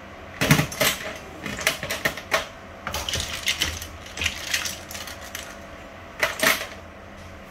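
Metal tongs and a serving spoon clinking and scraping against a frying pan and a plate as cooked crab and lobster pieces are lifted out, with the shells knocking together. The clicks come in clusters: about half a second in, on and off through the middle, and a last short cluster about six seconds in.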